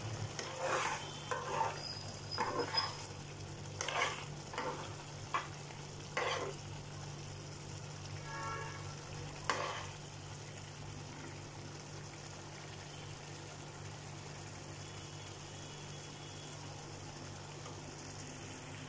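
A metal spoon stirring a thick potato and pea curry in a pan, with several scrapes and taps against the pan in the first ten seconds. A steady low hum and the simmering of the curry run on alone after that.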